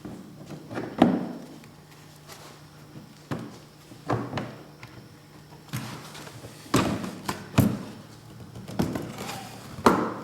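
Snowmobile's plastic side pod being pushed and knocked into place with its tabs seating: a series of irregular thunks and taps, about eight in ten seconds.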